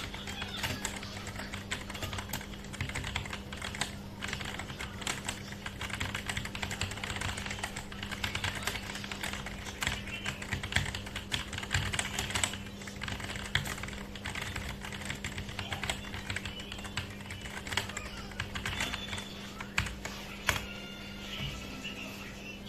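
Typing on a mechanical keyboard fitted with Akko Cream Yellow V3 linear switches (50 g): a steady run of quick, irregular keystroke clacks, with a steady low hum underneath.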